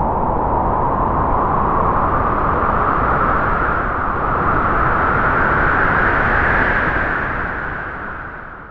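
Spooky Halloween sound effect: a long, loud rushing noise whose pitch slowly rises, fading out near the end.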